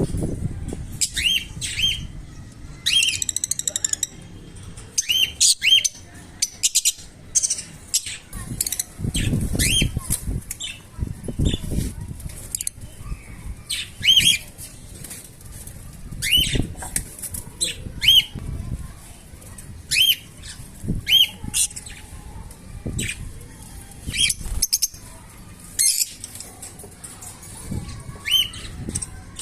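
Lovebirds chirping in short, sharp calls every second or two, with low rustling and thumps from the birds moving about in the nest box.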